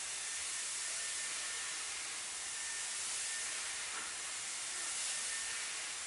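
Dyson Airwrap running, a steady hiss of blowing air with a faint high tone, as it dries the roots of the hair.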